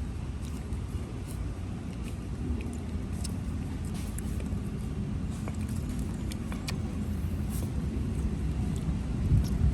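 A steady low rumble with faint, scattered small clicks and smacks, fitting puppies lapping milk.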